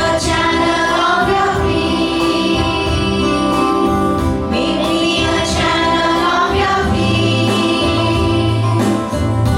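Music with voices singing together in long held notes.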